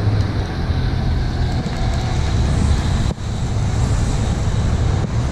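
Steady low rumble with a haze of noise and no clear single event, dipping briefly about three seconds in.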